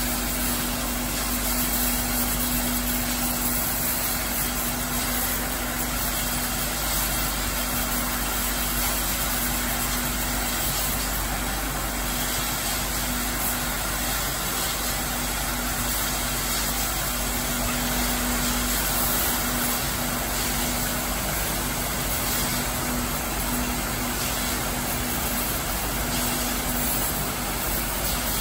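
An industrial stainless-steel basket washing machine running: a steady, even rush of noise with a low hum that drops out now and then.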